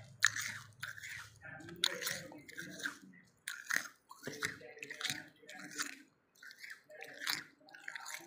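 A mouthful of freezer frost being chewed close to the microphone: wet crunching, about one to two crunches a second.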